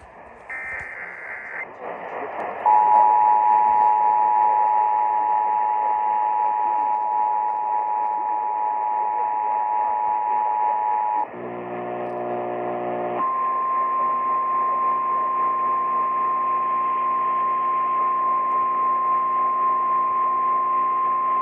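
Emergency Alert System signals over AM radio static. A brief burst of data tones is followed by the two-tone EAS attention signal, held steady for about eight seconds. After a short low buzz, a single steady tone, the weather-radio warning alarm, runs on to the end.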